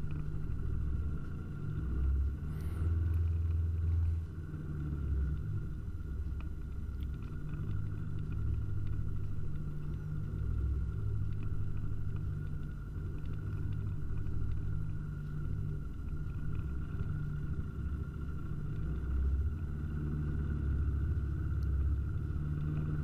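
Boat motor running steadily at slow cruising speed, a low, even rumble with a faint steady whine above it.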